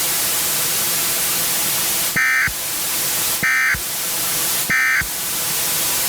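Emergency Alert System end-of-message signal: three short, evenly spaced bursts of warbling SAME data tones, about a second and a quarter apart, over a steady static hiss. It marks the end of the tornado emergency alert.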